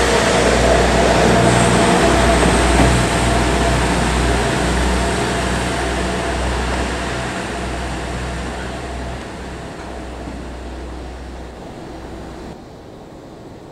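JR East KiHa 110 series diesel railcar pulling away from the platform: its diesel engine drones low and steady over wheel-and-rail noise, fading gradually as it moves off. The sound drops away suddenly near the end.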